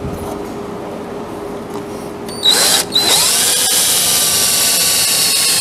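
Cordless drill boring a hole through a cedar leg with a twist bit. It starts about two and a half seconds in with a short burst, stops for a moment, then spins up again and runs with a steady whine.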